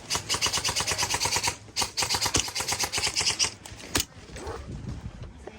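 Airsoft electric gun firing on full auto in two rapid bursts, each about a second and a half long, then a single sharp click.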